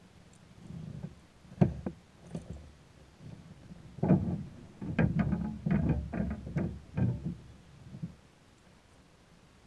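A freshly landed fish flopping and being handled on a plastic kayak's deck, heard as knocks and thumps against the hull. There are two sharp knocks early, then a dense run of thumps for about four seconds in the middle.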